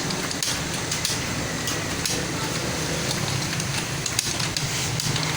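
Computer keyboard keys clicking in quick, uneven succession as someone touch-types at speed during a typing test, over a steady low hum.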